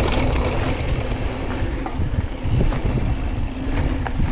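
Wind buffeting the microphone of a GoPro Hero 8 Black during a downhill mountain bike ride, a steady low rumble with scattered ticks and rattles from the bike on rough trail.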